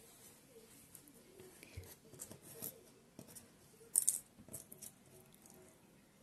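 Faint rustling and small clicks of synthetic doll hair being handled and smoothed against a crocheted doll's head, with a brief louder rustle about four seconds in.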